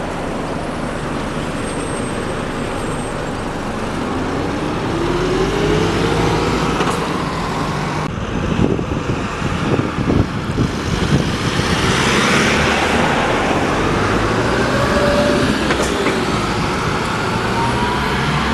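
Arriva hybrid double-decker buses driving past close by in city traffic, engine and tyre noise growing louder as they pass. A rising whine comes a few seconds in, and a few knocks and rattles follow midway.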